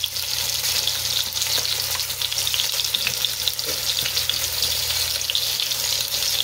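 Hot oil and pork roast juices sizzling steadily in a pot on the stove, with small crackles and pops throughout.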